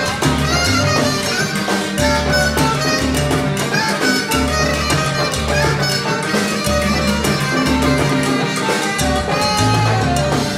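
Live salsa band playing at full volume: a moving bass line under steady, dense percussion with congas, and horns.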